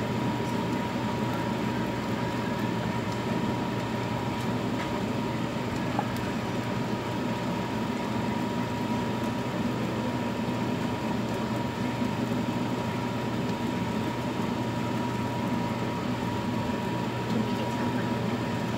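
Thin pancakes frying in oil in two pans, heard within a steady low hum and hiss, with a faint steady high tone.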